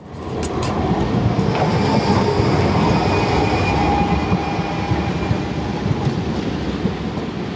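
Articulated low-floor tram passing close by on a curve and pulling away: a steady rumble of steel wheels on rail with a couple of sharp clicks near the start and a faint high whine. The sound eases slowly as the tram moves off.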